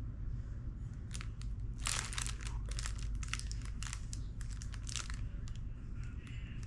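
Plastic packaging crinkling and rustling in the hands while items are unwrapped: a run of irregular crackles starting about a second in and dying away near the end.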